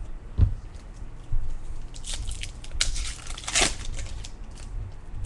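Baseball card pack and cards being handled: a knock about half a second in, then crinkling and crackling from about two to four seconds in.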